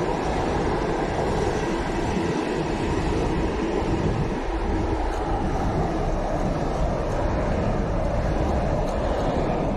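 Container wagons of a freight train rolling past on the track, a steady noise of wheels on rail.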